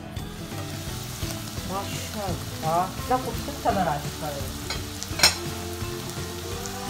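Chicken in tomato gravy sizzling and bubbling in an uncovered aluminium pot, with one sharp clink about five seconds in.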